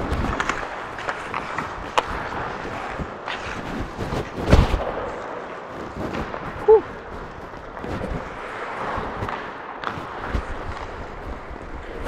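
Ice hockey play heard from a goalie's body mic: a steady rink hiss with scattered sharp clacks of stick and puck, the loudest about four and a half seconds in.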